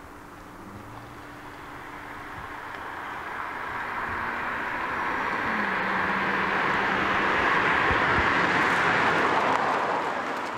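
Bentley Continental GT with a 6-litre W12 twin-turbo engine approaching and driving past at road speed: engine and tyre noise growing steadily louder, loudest about eight seconds in, then easing off slightly.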